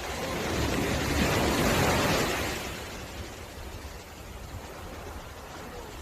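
Ocean waves breaking on a beach: one wave swells and crashes about two seconds in, then washes back to a steady surf hiss.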